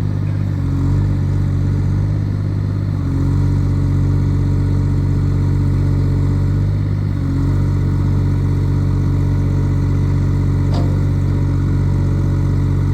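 Mini hydraulic excavator's diesel engine running steadily, its note shifting slightly about three and seven seconds in as the load changes, with one brief click near the end.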